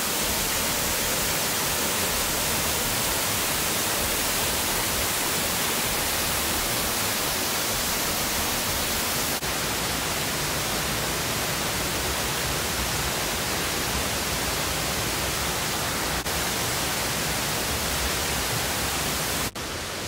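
Loud, steady rush of cascading water in a mountain stream: an even hiss with no rhythm or pauses.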